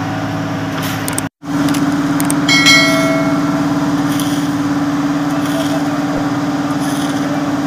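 Asphalt paver's diesel engine running steadily at a constant pitch while it lays asphalt. About two and a half seconds in a short metallic clang rings briefly over it.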